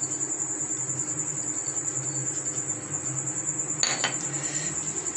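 A metal spoon clinks once against a steel pan about four seconds in, while almonds are mixed into motichoor boondi. A steady, high-pitched pulsing chirr and a low hum run underneath.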